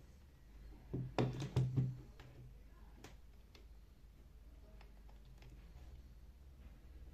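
A quick cluster of sharp knocks and clicks about a second in, then a few single clicks over a faint low steady hum.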